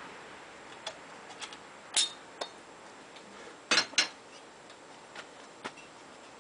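Scattered light metallic clicks and clinks of a thin sheet-metal trim strip being handled and fitted, the loudest a quick double clink just before four seconds in.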